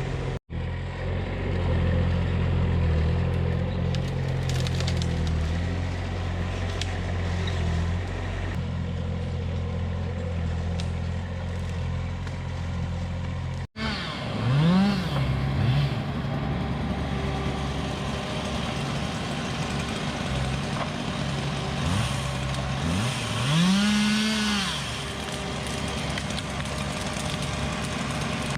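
An engine running steadily, then revving up and dropping back twice in the later part. The sound breaks off sharply twice, near the start and about halfway through.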